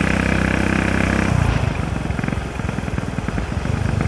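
Motorcycle engine running at steady revs. About a second and a half in, the throttle closes and the engine drops to a lower, uneven beat of exhaust pulses as the bike slows.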